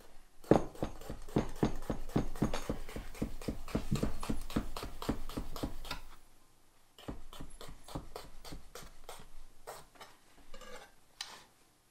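Kitchen knife slicing a jalapeño on a cutting board: a quick, even run of about five chops a second, a short pause about six seconds in, then slower, scattered chops.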